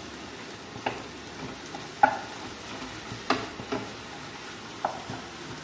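Ground beef frying with a steady sizzle in a stone-coated frying pan, while a wooden spatula knocks and scrapes against the pan about five times as the meat is broken up and stirred.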